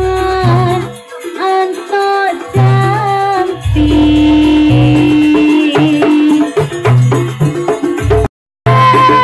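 Banyuwangi jaranan music, a gamelan-style ensemble with a singer, played loud over a sound system; it cuts out for a moment near the end.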